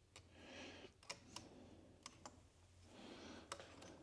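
Faint light clicks and soft scraping of hands working the cylinder base gasket off a Suzuki DRZ400 engine's crankcase, with a few separate ticks and two brief patches of scraping.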